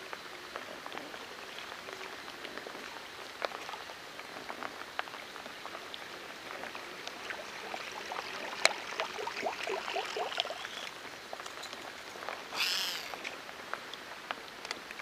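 Steady rain pattering on the river surface, with many scattered sharp ticks of drops. There is a busier run of quick ticks about two-thirds through and a brief louder rush near the end.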